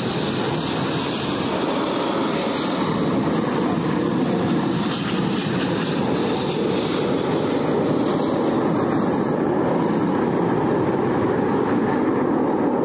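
Jet engines of a pair of KAI T-50B jets, heard from across the airfield as they run down the runway for takeoff: a steady rushing noise.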